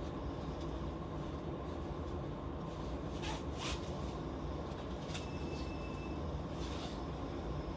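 Steady low hum of an electric commuter train standing stopped. A few short hissing sounds come through it, and a brief high beep lasts about a second midway.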